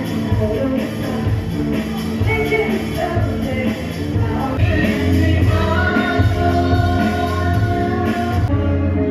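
Background music with singing and a steady low beat.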